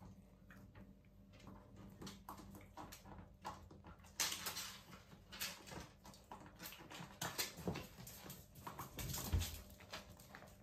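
Dachshund puppies play-fighting: claws scrabbling and clicking on a tiled floor and a plastic step stool, with a few louder knocks and small puppy noises mixed in.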